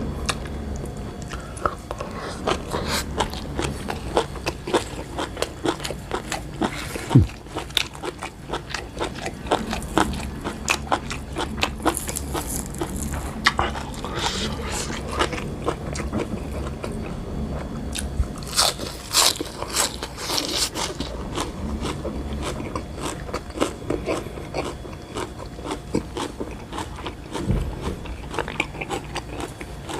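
A person chewing and biting crunchy food close to the microphone, mostly fresh raw vegetables, with many crisp crunches in quick succession.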